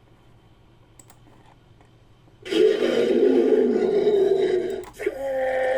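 Monster roar sound effect for an ogre creature, made from existing creature recordings. After a quiet pause, a loud, rough roar starts about two and a half seconds in and lasts about two and a half seconds. A second, more tonal roar with a held pitch begins near the end.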